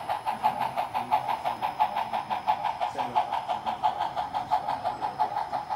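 Steady rhythmic steam chuffing, about four to five beats a second, from a sound-equipped model Southern Pacific steam locomotive's small onboard speaker as the train runs along the layout.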